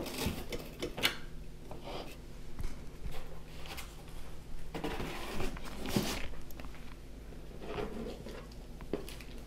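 Cardboard game boxes and a paper print being handled and shifted: scattered soft taps, scrapes and rustles, a little louder about five to six seconds in.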